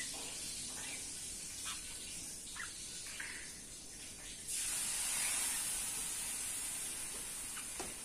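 A steady high-pitched hiss that gets louder about halfway through, with a few brief, faint bird chirps in the first half.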